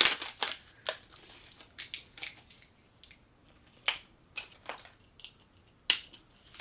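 Thin plastic wrap crinkling and crackling as it is peeled off a hand soap bottle and handled, in irregular bursts: a busy run at the start, then scattered crackles.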